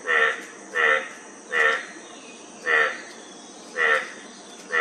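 A frog calling over and over, short throaty croaks about once a second, six in all. A steady high insect trill runs behind them.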